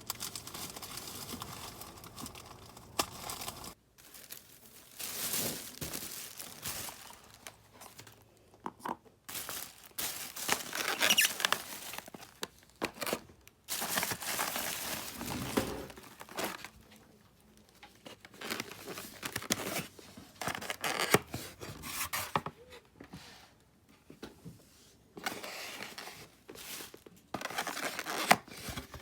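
Takeout food packaging being handled and unwrapped: irregular rustling and crinkling of paper wrapping in short bursts.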